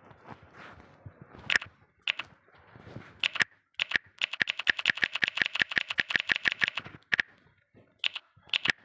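A series of sharp clicks: a few single clicks, then a fast even run of about ten clicks a second for nearly three seconds, then a few more single clicks.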